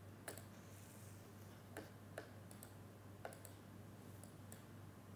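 Near silence: room tone with a faint steady low hum and a handful of faint, short clicks scattered through it.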